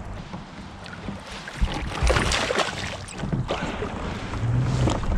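Water sloshing and splashing around a kayak as a hooked largemouth bass is fought close to the boat, with a few sharper hits about two seconds in.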